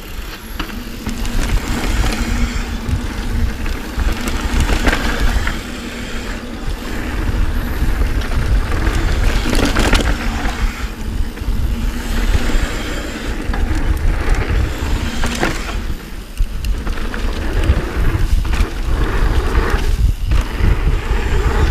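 Mountain bike riding fast down a dirt downhill trail: a steady low rumble of wind on the microphone, tyres on packed dirt, and the bike's chain and frame rattling over bumps.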